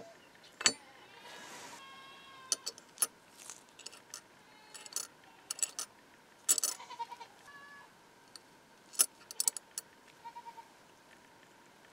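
Small blued-steel lock levers clicking and clinking as they are set onto the posts of a cast brass lock case, in scattered sharp taps, some with a short metallic ring, and a brief scrape about a second in.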